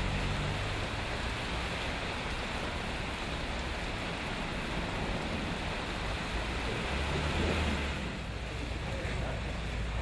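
Heavy rain pouring on a flooded street while cars drive through deep water, their wheels throwing up spray, as a steady rushing noise with a low engine rumble that swells briefly about three-quarters of the way in.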